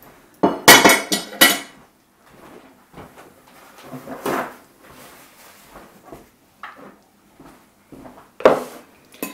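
Ceramic plates clattering as one is set down on a counter against another, a quick run of sharp clinks about half a second in. Softer knocks and handling of dishes and utensils follow, with another clatter near the end.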